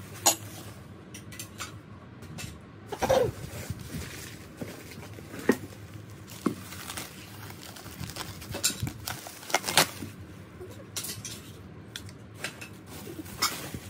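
Glazed ceramic bowls being unpacked from bubble wrap: crinkling and rustling of the plastic wrap, with a few sharp clinks of ceramic knocking against ceramic.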